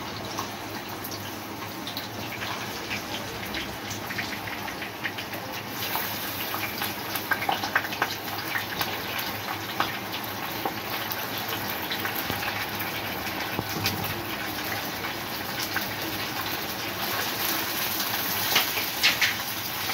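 Raw chicken pieces sizzling and crackling in hot oil in a frying pan, the sizzle slowly getting louder as the pan fills.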